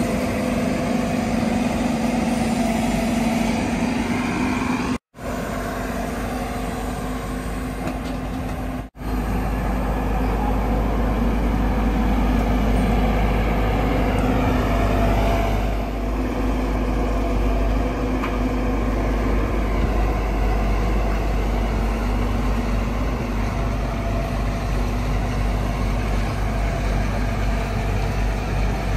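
Steady heavy-engine running sound of the RC construction machines. It drops out abruptly twice, about five and nine seconds in, and after the second dropout a deeper, heavier rumble carries on.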